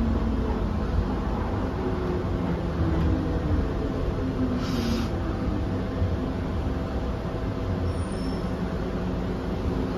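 Hong Kong MTR first-generation M-train (car A154) running and slowing to a stop, heard from inside the car: deep wheel-and-track rumble with the traction motors' whine falling in pitch as it brakes. A brief hiss comes about halfway through.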